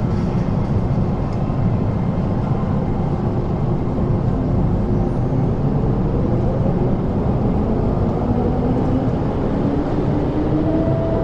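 MTR Island Line M-train departing the platform: a steady rumble of the train running out along the rails, with a traction-motor whine rising in pitch from about seven seconds in as it accelerates into the tunnel.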